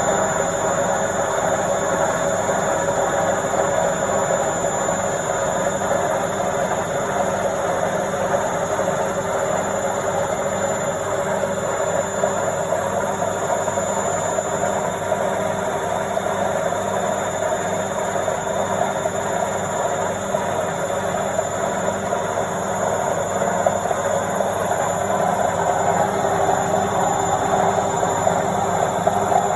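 Washing machine in its spin cycle: a steady whirring hum and rumble, holding one pitch throughout.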